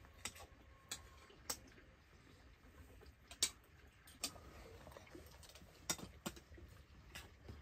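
About nine sharp clicks and taps at irregular intervals, the loudest about halfway through.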